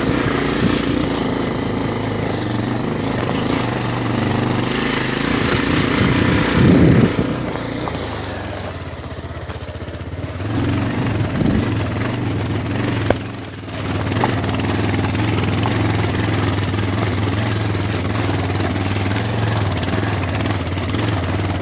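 Motorcycle engine running steadily while riding over a rough gravel and rock dirt road, with the rattle and noise of the rough surface. There is a louder jolt about seven seconds in, the engine drops back for a couple of seconds after it, and a sharp knock comes about thirteen seconds in.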